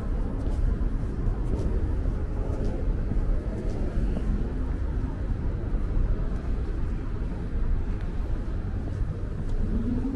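Steady low rumble of distant vehicle noise, with a faint tone beginning to rise near the end.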